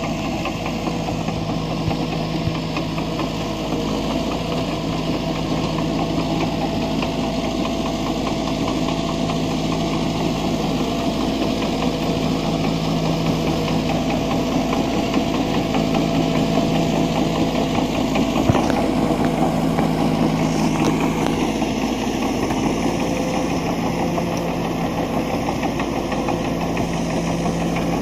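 Caterpillar D5K LGP crawler dozer's four-cylinder diesel engine running steadily under load as it pushes soil with its blade, with a steady clatter from its steel tracks. One sharp knock comes about two-thirds of the way through.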